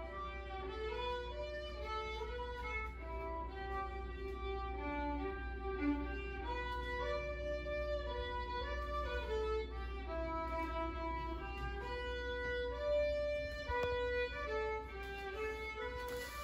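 Background music: a slow melody of long held notes, moving from note to note.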